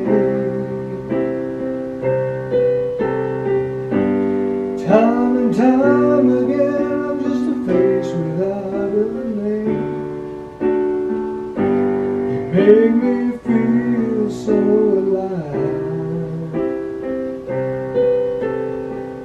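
Electronic keyboard played with a piano sound: held chords changing every second or so. A singing voice comes in now and then over the chords.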